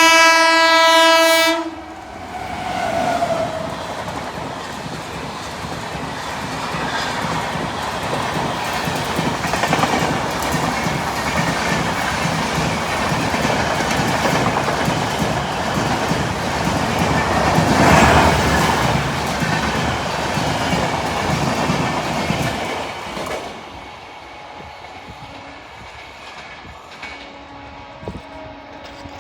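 An Indian Railways express train sounds a loud, chord-like horn that stops about two seconds in. The train then passes at speed, its wheels on the track growing louder to a peak about eighteen seconds in and dropping away quickly a few seconds later.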